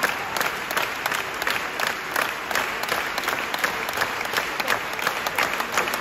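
Theatre audience applauding steadily, a dense wash of clapping with some sharper single claps standing out.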